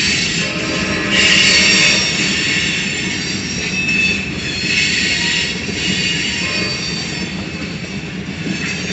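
Freight train rolling slowly by, its wheels squealing against the rails. The squeal swells and fades every second or two over a steady low rumble.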